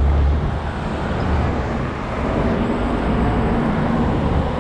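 City street traffic noise heard from a bicycle riding among cars and buses, with a strong low rumble near the start and a faint steady engine hum coming in about halfway through.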